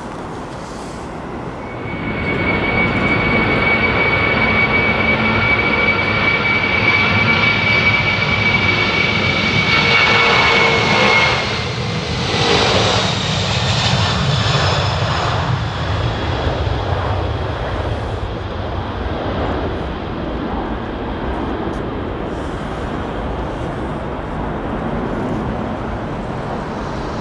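Boeing 747-400's four jet engines at takeoff power on the takeoff roll. The loud jet noise swells about two seconds in, carrying a steady high fan whine that drops in pitch as the jet passes close. Then comes a broad rumble that slowly fades as it lifts off.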